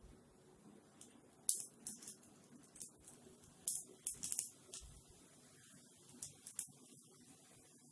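Besan sev dough strands frying in hot oil: a faint steady sizzle broken by irregular sharp crackles and pops as the dough hits the oil.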